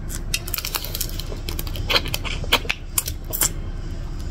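Close-miked chewing of crispy fried giant river prawn: a quick, irregular run of crunchy clicks and mouth sounds over a low steady hum.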